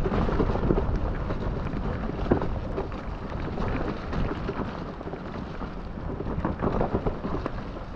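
Mountain bike running fast down a muddy, leaf-covered forest trail, heard through an action camera's microphone: a steady rumble of wind and tyres with frequent short knocks and rattles as the bike jolts over the rough ground.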